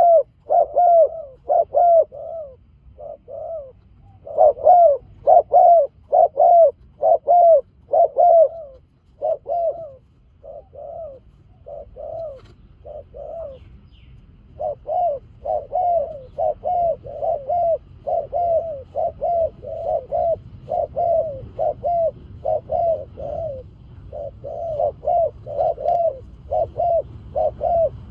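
Spotted doves cooing in long runs of short arching notes, about two a second, softer for a few seconds in the middle.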